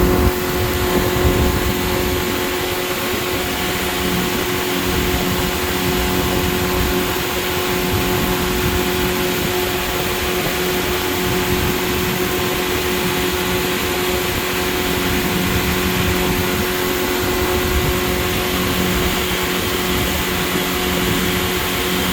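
Boat's outboard motor running steadily at cruising speed, with wind buffeting the microphone.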